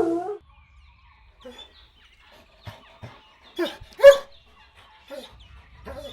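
Golden retriever puppies yipping and barking: a string of short, sharp high calls with pauses between, the loudest about four seconds in.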